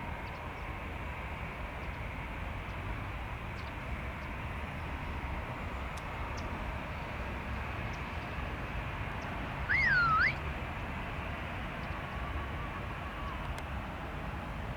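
Steady hiss and low rumble, with one short whistled call about ten seconds in that rises, swoops down and rises again.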